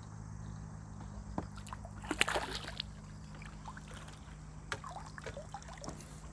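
Water splashing and sloshing in short bursts as a hooked crucian carp is brought to the surface and landed. The loudest splashes come about two seconds in, with smaller ones near the end.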